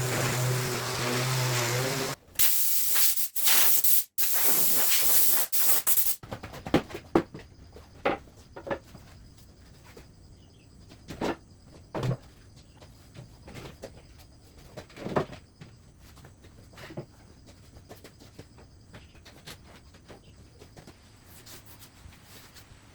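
A motor with a steady hum runs and stops about two seconds in. Then come several loud bursts of hissing spray or air, each cut off sharply. Scattered light knocks and taps follow.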